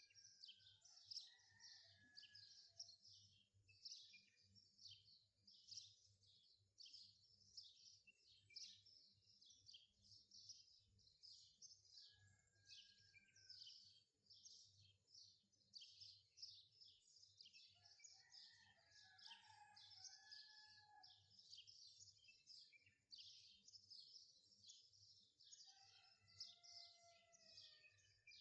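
Faint birds chirping: a dense run of rapid, high chirps, with a few lower whistled calls now and then.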